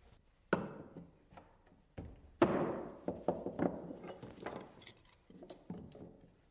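Wooden wedges being tapped with a hammer to drive the bottom stair riser tight into its housing: a series of irregular knocks, the loudest about two and a half seconds in, followed by a quick run of lighter taps and a few more near the end.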